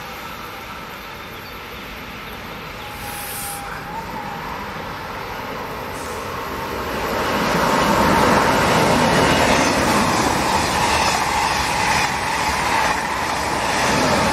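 Ouigo TGV Duplex high-speed train running through a station at speed: after a quieter lull, a rush of wheel and air noise swells from about halfway and stays loud as the train sweeps close past near the end, with a steady whine running through it.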